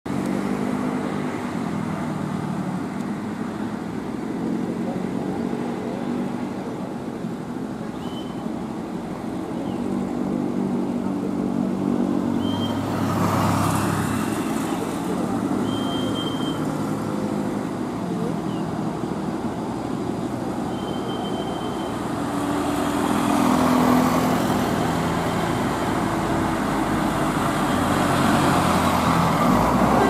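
Road traffic passing: the engines of buses, cars and motorcycles running, growing louder over the last several seconds as the buses draw near.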